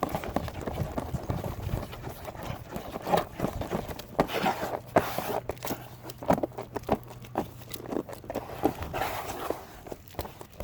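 Irregular taps, clicks and short scrapes of a plastic spreader working fiberglass filler, over a faint steady low hum.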